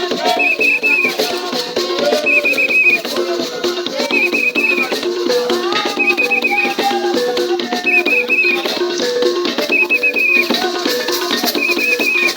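Music with shaken rattles, a short high trilling figure repeating about once every second and a bit, over a looping lower melodic line.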